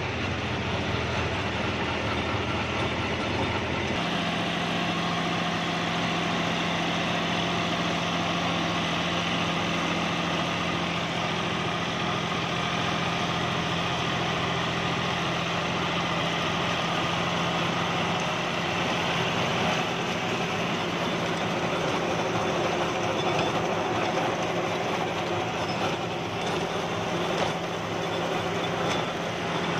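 John Deere 5310 tractor's three-cylinder diesel engine running steadily. About four seconds in its note changes, the deepest rumble dropping away, and it settles into a steady idle.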